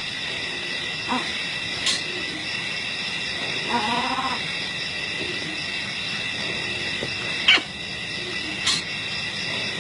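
Wild-animal sounds over a steady, high-pitched drone of bush ambience: a few short calls, one about a second in and a longer one around four seconds in, and a sharp click past the middle.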